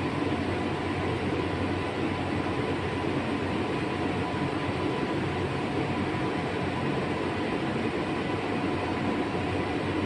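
Steady workshop background noise: a constant rumble and hiss from machinery or ventilation, with a few faint steady whines and no distinct events.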